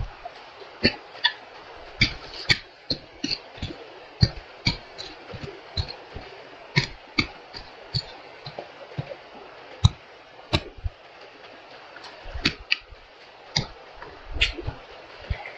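A hand hoe chopping repeatedly into dry, loose soil: sharp, irregular strikes about one or two a second as the blade digs out a bamboo-whip shoot.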